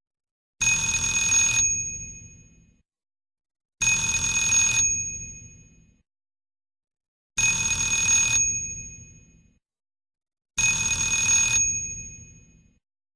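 An old telephone's bell ringing, played back at double speed so it sounds sped up and higher-pitched. Four rings come about every three to four seconds; each is a second-long ring that then fades out.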